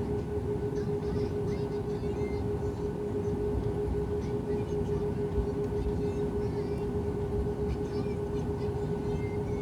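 Airliner's jet engines running steadily, heard from inside the cabin while taxiing, as a constant hum over a low rumble.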